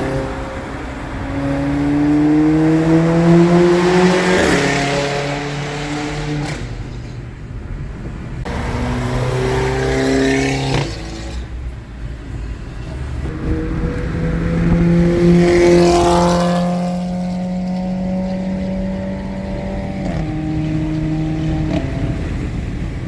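VW Golf GTI's turbocharged four-cylinder engine, straight-piped through a 3-inch exhaust, pulling hard under acceleration. The note climbs in pitch and then drops sharply at each DSG gear change, several times over. It settles into a steadier drone over the last few seconds.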